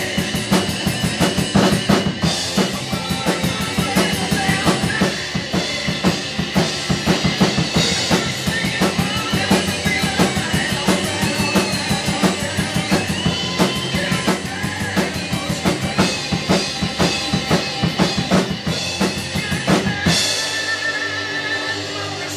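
Rock drum kit played hard and busy over a recorded rock song, with bass drum, snare and rimshots driving the beat. About twenty seconds in the drumming stops on a cymbal crash, leaving a sustained electric guitar with a wavering pitch.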